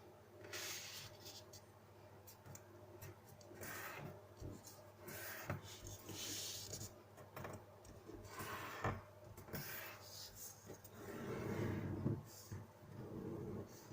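A square sheet of paper being folded and creased by hand: irregular rustling swipes and small taps, with a longer, heavier rub near the end as a fold is pressed flat.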